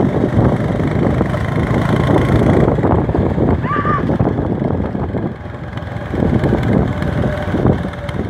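Steady rumble of a moving vehicle with wind noise on the microphone. A short high note rises and falls about four seconds in.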